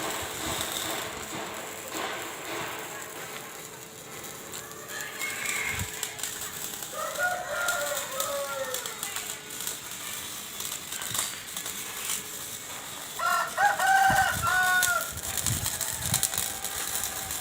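A rooster crowing twice, each crow about two seconds long, the second one louder.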